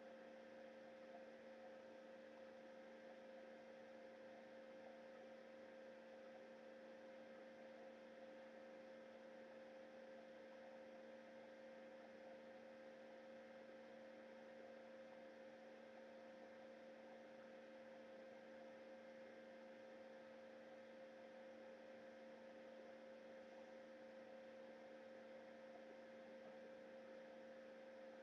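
Faint, steady electrical hum of a few constant tones over a low hiss, with nothing else happening.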